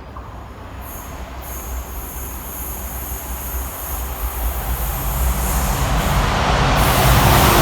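A train approaching on the main line, its rumble growing steadily louder, with a thin high-pitched whine from the rails setting in about a second in.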